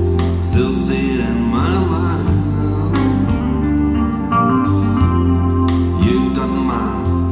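Guitar music with a steady, full bass line and a wavering sung or slide-guitar melody, played through Dali Ikon 5 mk2 loudspeakers and heard in the room.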